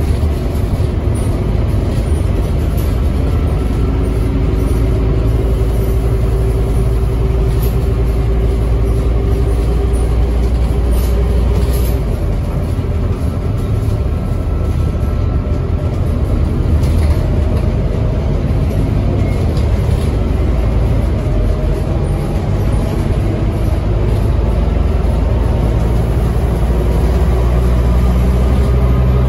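Scania N270UD double-decker bus under way, heard from inside the saloon: the diesel engine and driveline give a steady low drone with faint tones that slowly drift in pitch. The low rumble eases about twelve seconds in and grows stronger again near the end.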